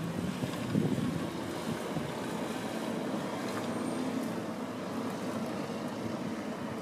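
A car's engine running as the car drives slowly through deep snow, over a steady hiss of background noise.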